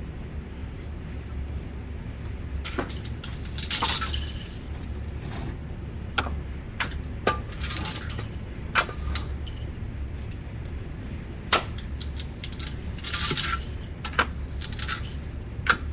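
Light metallic clinks and clicks of spent brass cartridge cases being gathered up off the floor, about six sharp ones spread unevenly, over a steady low hum of ventilation.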